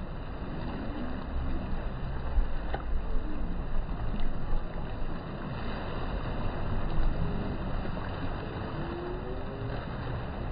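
Sea waves washing and sloshing against shoreline boulders, with wind rumbling on the microphone; the noise swells and falls, loudest a few seconds in and again about seven seconds in.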